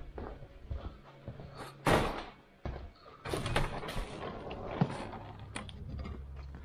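A door being opened and closed: a sharp knock about two seconds in, then a run of clunks and rattles.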